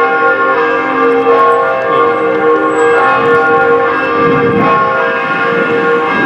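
Restored bell-tower bells ringing continuously, their strokes overlapping into a dense, steady sound of many sustained tones.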